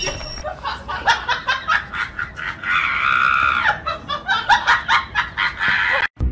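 People laughing in quick, repeated bursts, with a longer drawn-out laugh about three seconds in; the sound cuts off abruptly near the end.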